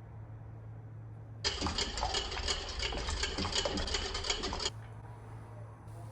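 Small electric kitchen appliance motor starts about a second and a half in and runs loud and rough for about three seconds, then cuts off suddenly, over a low steady hum.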